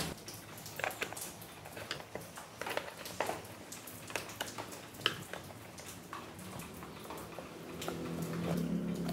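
Scattered light clicks and knocks of hard plastic scooter engine parts, the air filter box and its intake duct, being handled and fitted to the engine. A low steady hum comes in near the end.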